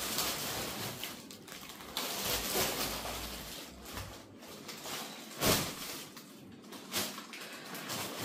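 Rustling of a cloth shopping bag with plastic inside as a person carries it in and sits down with it, with a few soft knocks, the loudest a dull thump a little past halfway.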